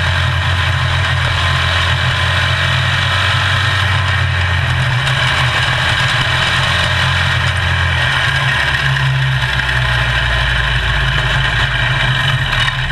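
Onboard engine of a small open-wheel race car running at a low, steady speed, with its pitch dropping lower about eight seconds in, over a constant hiss.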